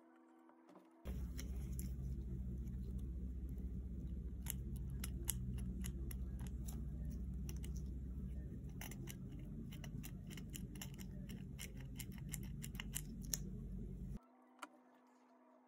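Small metal parts clicking and rattling as the front suspension of a tiny all-metal RC car chassis is handled and pressed in the hands, over a low steady rumble. The sound starts abruptly about a second in and cuts off abruptly near the end.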